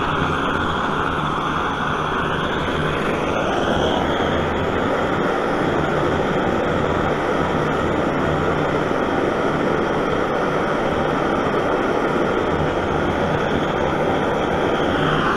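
Vintage brass pump-up gasoline blowtorch burning, its pressurised flame giving a steady, loud, even noise.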